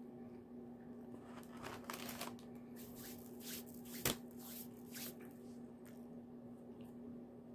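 Rustling and crinkling of food packaging being handled, in a run of short scrapes, with one sharp knock about four seconds in, over a steady low hum.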